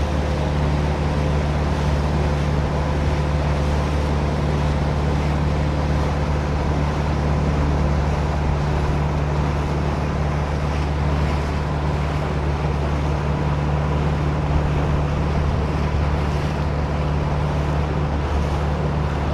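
Boat motor running steadily while the boat is underway, a constant low drone with rushing wind on the microphone and water noise.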